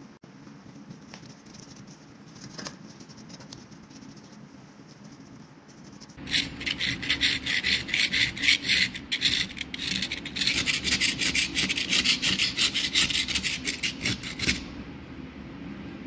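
Fast back-and-forth abrasive rubbing by hand on a part of an old manual meat grinder: a steady run of rasping strokes, several a second, starting about six seconds in and stopping abruptly near the end. Before that there is only faint rustling.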